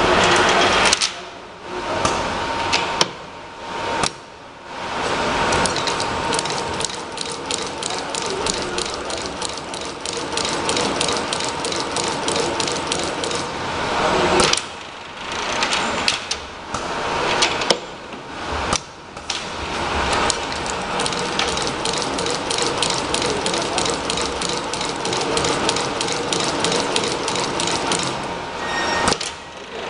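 Automated assembly machinery running, with rapid mechanical clicking and a faint steady whine. It breaks off briefly several times and starts again.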